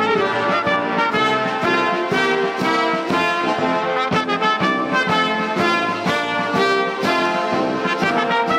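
Military brass band playing a march: full brass with trombones and trumpets carrying the tune over a steady beat.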